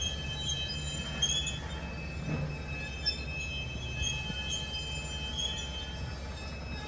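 Freight cars rolling past on curved track, their steel wheels squealing in high, thin, wavering tones over a low rumble, with a couple of sharp clanks.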